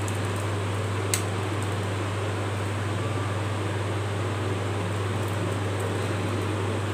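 Steady low hum and hiss of a running fan, with one sharp click about a second in.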